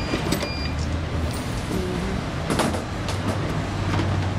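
Airport security checkpoint: a steady low machine hum, plastic security bins clattering a few times, loudest about two and a half seconds in, and a short high electronic beep at the very start.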